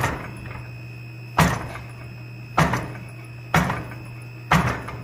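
Fly press ram coming down on red-hot steel between fuller dies: five sharp metal-on-metal strikes about a second apart, each ringing briefly, as a dragonfly wing is drawn out. A steady hum runs underneath.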